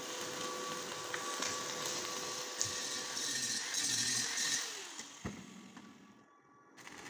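Angle grinder grinding the steel tube of a scooter frame, a steady whine over harsh hiss. About five seconds in it is switched off and winds down.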